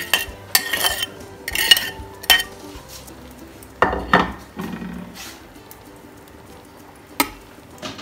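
A metal spoon scraping cooked rice out of a ceramic bowl into a metal cooking pot: a run of quick scrapes and clinks over the first two seconds or so, a couple of knocks about four seconds in, and one sharp knock near the end.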